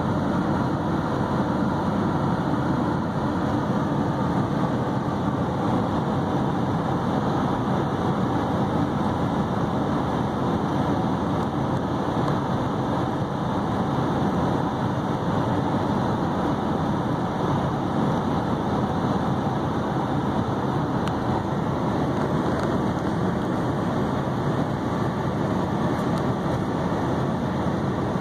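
Steady road noise inside a moving car's cabin: tyres rolling on pavement and the engine running at an even speed, unchanging throughout.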